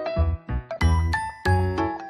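Upbeat background music: a bouncy bass beat under bright keyboard and bell-like notes.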